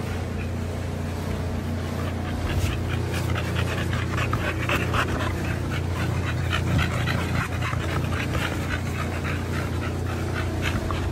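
Pocket American Bully dog panting quickly and rhythmically with its mouth open, over a steady low hum.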